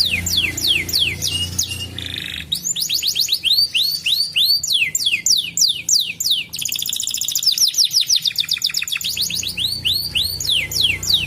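Domestic canary singing a long phrase of quick notes that sweep down in pitch, several a second. Between about six and nine seconds in it changes to a very fast trill, then returns to the sweeping notes.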